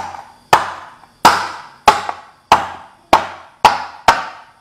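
Lemongrass stalks being pounded on a wooden cutting board: about seven sharp knocks at a steady pace, each ringing out briefly. The stalks are being bruised to release their juice.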